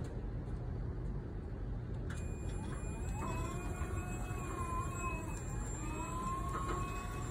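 MEC Crossover 2659ERT electric scissor lift driving: its DC drive motors whine, the pitch rising and falling twice as the lift speeds up and slows, over a steady low noise. A faint click comes about two seconds in, after which a thin high whine holds steady.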